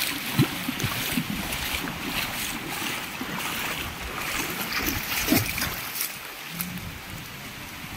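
Shallow stream water running over a rock bed, with wind on the microphone; the noise eases somewhat about six seconds in.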